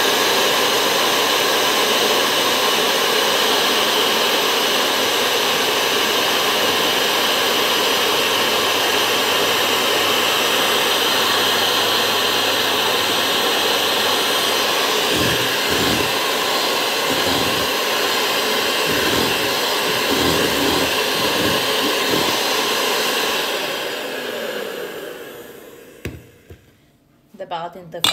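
Kenwood electric hand mixer running steadily, its beaters whisking an egg, milk and olive oil batter in a stainless steel bowl. It is switched off and runs down a few seconds before the end, followed by a few light knocks.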